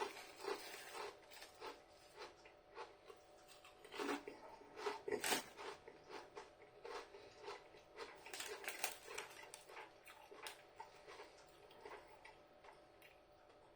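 Crinkle-cut potato crisps being chewed close up: a run of short, irregular crunches, several a second, thinning out near the end.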